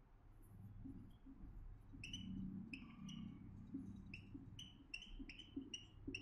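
Whiteboard marker squeaking on the board as words are written: a run of faint, short squeaks, one per stroke, starting about two seconds in and coming faster toward the end.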